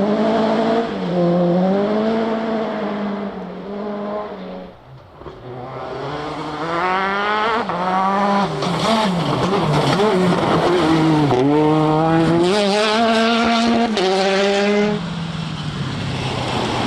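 Rally car engines at high revs, pitch rising and falling sharply as the drivers change gear and lift off. The sound drops to a brief lull about five seconds in. Then a car comes up accelerating hard, its engine note climbing through the gears again and again.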